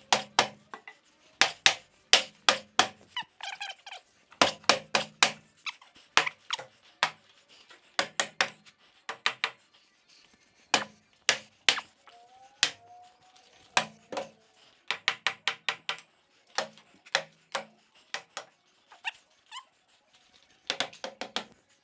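Hammer driving nails into wooden wall framing: sharp strikes in quick runs of three to six, with a short squeak about twelve seconds in.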